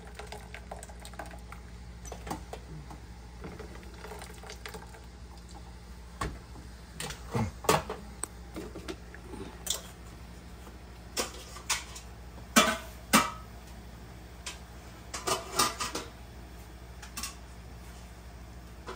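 Kitchen clatter of metal tongs and a pot lid knocking and clinking against an aluminium stockpot as boiled ears of corn are lifted out into a plastic colander. The clinks come irregularly in small clusters, the loudest a little past the middle, over a faint steady low hum.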